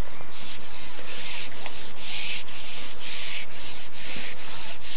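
Loud rhythmic rasping, about two strokes a second with short gaps between, like a hand saw or sanding stroke.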